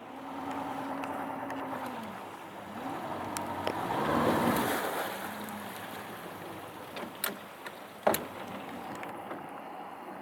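Engine running with a steady hum that dips in pitch briefly, with a rush of water noise swelling about four seconds in and a few sharp clicks near the end.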